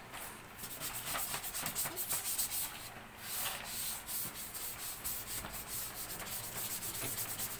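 Chalk scraping on a small chalkboard in quick, repeated strokes, with a short pause about three seconds in.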